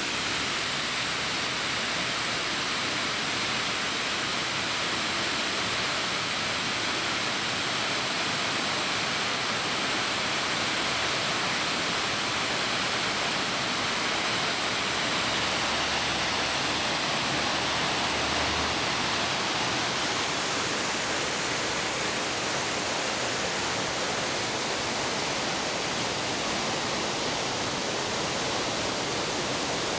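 Water spilling over the weir gates of a fish passage and pouring into a churning pool below, making a steady rushing.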